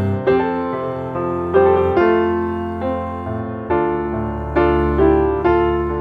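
Background piano music: slow notes and chords, a new one struck about once a second and left to fade.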